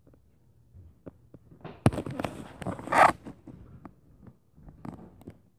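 Muffled thumps and knocks of footsteps stomping on the floor above, with a sharp knock about two seconds in and a brief, louder scraping rub about three seconds in.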